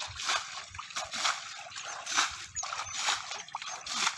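Shallow muddy water splashing and sloshing as hands and a bowl scoop through it at a fishing net, in a run of irregular splashes, roughly two a second.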